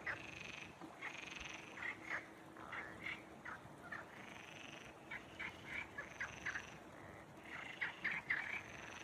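Frogs calling in a chorus: many short croaks repeated at an irregular pace, overlapping, with a louder, denser run of calls near the end.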